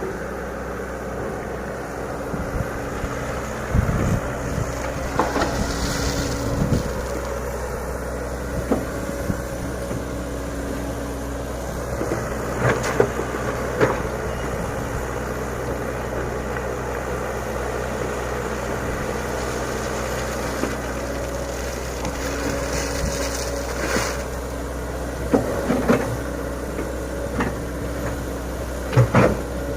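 Komatsu PC100 excavator's diesel engine running steadily, with scattered knocks and clanks from the machine at work as its bucket levels sand.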